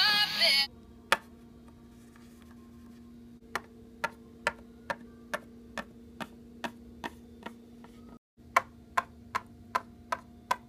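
Regular sharp ticks, about two a second, starting about three and a half seconds in after a single tick, over a low steady hum.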